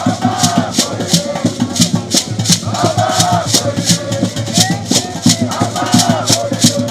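Dance music: singing voices over a steady beat of shaker rattles, about three strokes a second.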